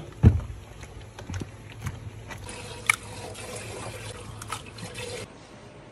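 Wet handling of raw pork intestines being scrubbed with salt and white vinegar, with a thump just after the start, then water trickling steadily for a few seconds and stopping about five seconds in.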